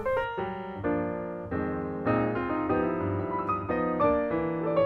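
Background piano music: a light tune of separate notes and chords played one after another.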